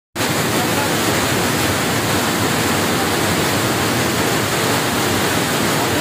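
A waterfall pouring down at very close range, a steady loud rush of falling and splashing water that starts abruptly a moment in.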